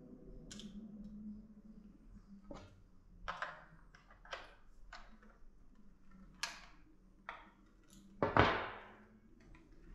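Clicks and clacks from the mechanism of an 1830s Kuchenreuter bellows airgun as it is cocked and readied, spaced irregularly about a second apart. A heavier clack with a short ringing tail comes near the end and is the loudest.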